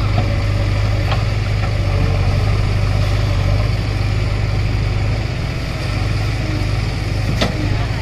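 JCB 3DX backhoe loader's diesel engine running steadily while the backhoe arm digs and lifts a bucket of mud. There is a sharp knock about a second in and a louder one near the end.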